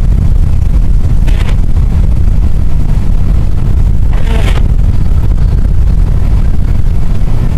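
Steady low rumble of a car driving, heard from inside the cabin, with two short, higher sounds about a second and a half in and around four seconds in.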